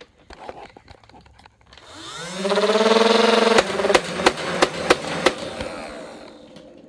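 Nerf Rival Khaos motorized flywheel blaster fired on full auto. Its motors spin up with a rising whine about two seconds in, then about half a dozen sharp clacks come as balls fire, and the whine fades as the flywheels wind down.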